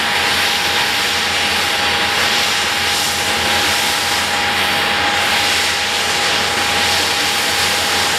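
Handley Page Victor K.2's Rolls-Royce Conway turbofan engines running steadily with the aircraft standing still: a loud, even rush of jet noise with a steady whine.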